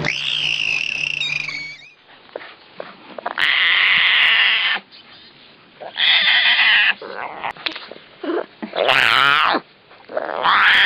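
Animal calls: a held high-pitched cry in the first two seconds, then four loud, drawn-out cries about two seconds apart.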